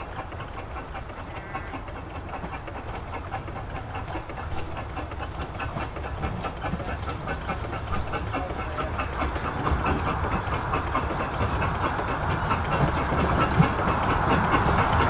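Narrow-gauge steam locomotive No. 3 'Sir Haydn' working a train of coaches, its exhaust beating in a steady rhythm that grows louder as it approaches.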